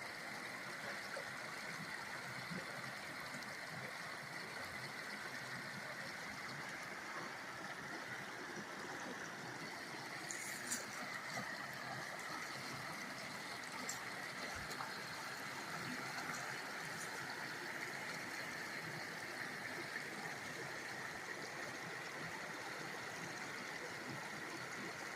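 A small trout creek running, a steady rush of flowing water, with a faint click about ten seconds in.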